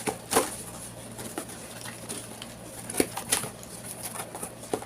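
Packaging being handled in an unboxing: irregular rustles, taps and clicks, the loudest about half a second in and again about three seconds in.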